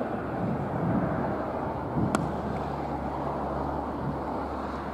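A single sharp crack of a cricket bat striking the ball about two seconds in, over a steady outdoor rumble of wind on the microphone.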